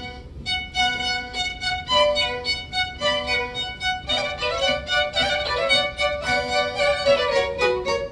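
Violins playing a classical melody. A single line at first, with a second part joining about halfway through.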